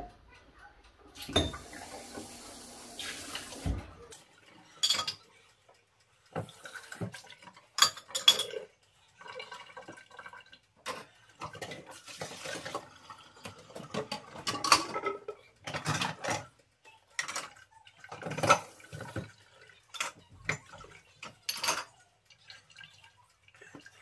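Dishes and cutlery being handled: a string of separate knocks and clinks, with a steady rush of noise for a couple of seconds near the start.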